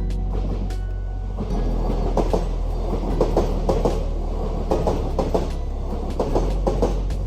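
Kintetsu Minami-Osaka Line electric train running past with a steady low rumble and irregular knocks of its wheels on the track, the knocks busiest from about two seconds in.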